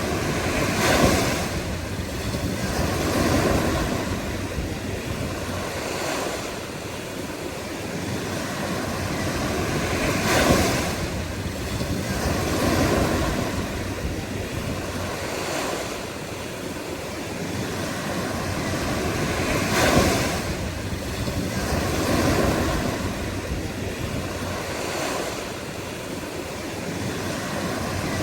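Ocean surf: waves breaking and washing in a slow cycle, with a louder crash about every nine to ten seconds (near the start, around ten seconds in and around twenty seconds in) and smaller swells between.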